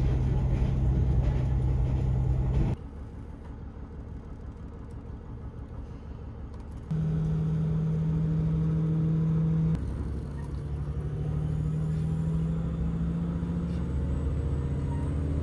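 A diesel railcar's engine is heard from inside the passenger cabin as a steady low hum with a drone-like note. The sound changes abruptly in level and pitch several times, cutting from one stretch of running to the next.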